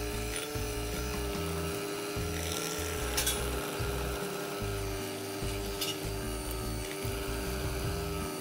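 Electric hand mixer running steadily at medium speed, its motor giving a steady whine as the beaters mix flour into creamed butter batter.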